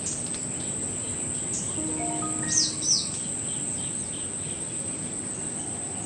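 Small birds chirping in quick, downward-sweeping notes over a steady, high insect drone, with two louder chirps about two and a half and three seconds in.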